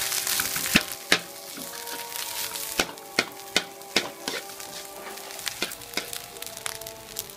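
Metal spatula scraping and knocking against a pan while stir-frying rice, with a sizzling hiss strongest in the first second and a dozen or so sharp knocks. Background music with held notes plays underneath.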